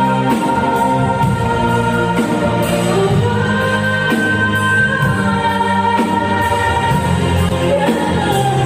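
A female singer performing a slow pop ballad live with band accompaniment, holding long notes over a steady beat.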